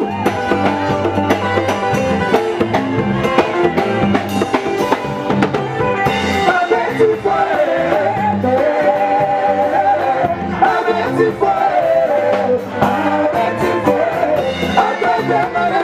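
Music with singing over a steady drum beat.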